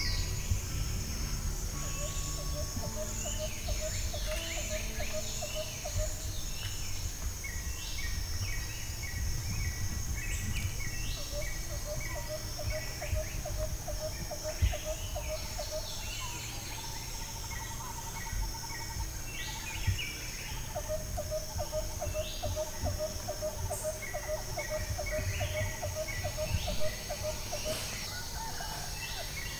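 Forest ambience with many birds chirping and calling, and a lower, rapid pulsed trill repeated in three runs of several seconds each, over a low rumble.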